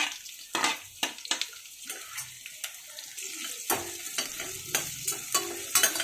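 Sliced onions frying in hot sesame oil in a stainless steel pressure cooker: a steady sizzle. Over it a steel spoon stirs and scrapes, with many sharp clicks and knocks against the pot.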